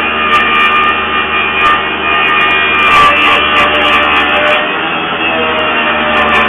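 Handheld electric power tool running steadily under load as it is pushed along a length of timber, a high motor whine that wavers slightly in pitch partway through.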